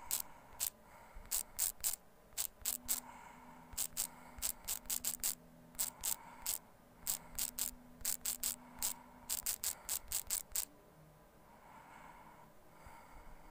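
Typing on a smartphone's on-screen keyboard: a quick, irregular run of sharp key clicks, one per keystroke, that stops about ten and a half seconds in.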